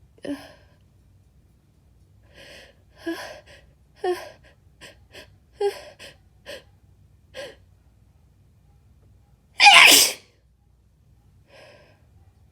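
A woman's series of short, hitching gasps building up over several seconds, then one loud sneeze about ten seconds in, followed by a faint breath. The sneeze is part of a fit she brought on deliberately, with her sinuses overstimulated.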